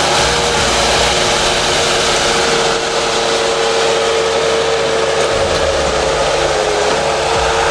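Bobcat 773 skid steer loader's diesel engine running steadily, with a steady whine over the engine noise.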